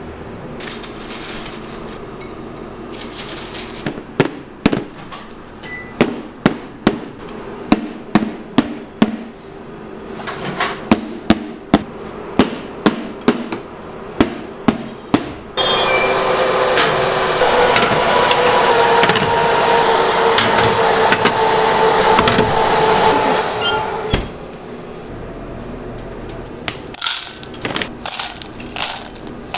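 Metal cake tins clinking and knocking against a stainless steel worktop, sharp strokes about once or twice a second. Then a steady loud noise with a hum starts suddenly, runs for about eight seconds and stops. Near the end, chocolate callets clatter into a stainless steel bowl.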